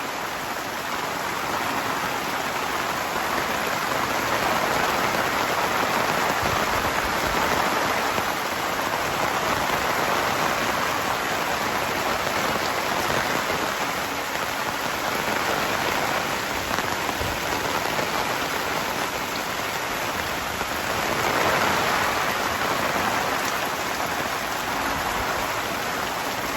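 Steady rain falling, with runoff pouring off the edge of a roof that has no gutter and splashing into a rain-collecting container. The rush swells a little about three quarters of the way through.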